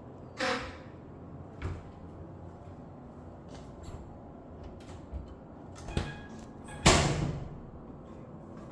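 Fitted kitchen cabinet panel doors being opened and closed, including those in front of a built-in washing machine and fridge: a series of short knocks and clacks, the loudest about seven seconds in.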